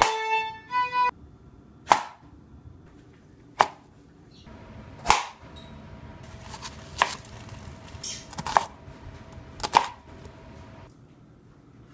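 A brief musical phrase of a few pitched notes in the first second. Then a chef's knife cuts through carrot, bell pepper and onion onto a plastic cutting board: about six single sharp knocks, roughly one and a half seconds apart.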